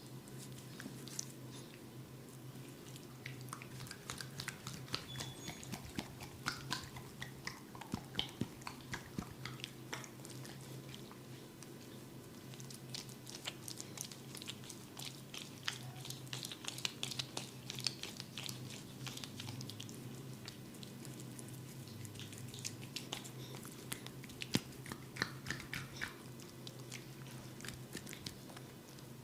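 Hands working an oil-soaked scalp and hair in a head massage: dense wet crackling and squishing from rubbing and scratching, with thicker runs of sharp crackles at times. A steady low hum lies underneath.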